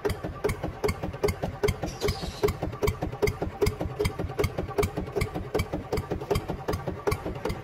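Tractor engine sound chugging steadily at idle, an even beat of about four to five pulses a second.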